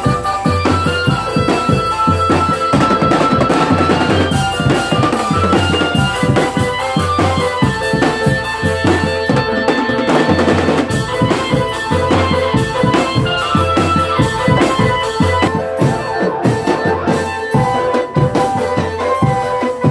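Drum band playing: a steady, repeating bass-drum beat with snare and tom drums, over a melody of held notes.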